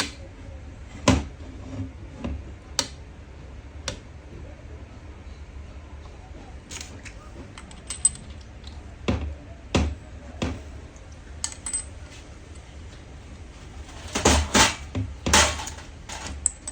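Small metal parts and tools clinking and knocking as they are handled during diesel fuel pump repair: scattered single clicks, then a quick cluster of louder knocks near the end.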